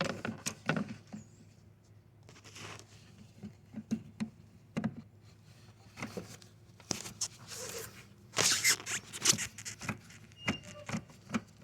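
Irregular clicks and knocks of hand tools working a 10 mm socket on a long extension, with a denser cluster of clicks and rustling near the end.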